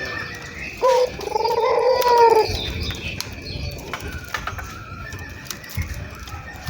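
Puter dove (Barbary or ring-necked dove) cooing once about a second in: a sharp rising opening note, then a drawn-out lower coo lasting over a second. Fainter short calls follow over a low rumble.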